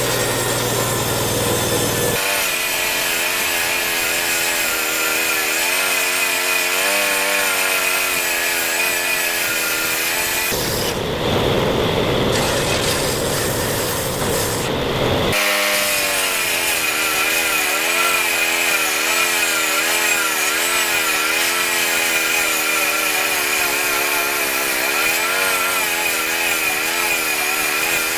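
Diesel-driven 16-inch circular saw ripping wood to thin it. The sound runs without a break: a steady drone for the first two seconds, then two long cuts where the blade's pitch wavers under load, with a rougher, noisier stretch of about five seconds between them.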